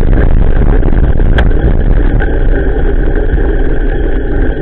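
Steady wind and road rumble on the action camera's microphone as the bicycle rolls over a wet, potholed road in the rain, with a single sharp click about a second and a half in.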